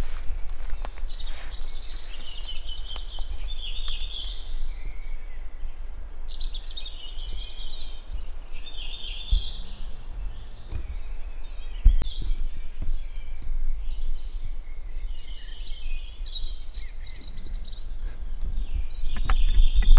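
Songbirds calling and singing, several overlapping short calls and trills, over a steady low rumble, with a few sharp clicks, the clearest about twelve seconds in.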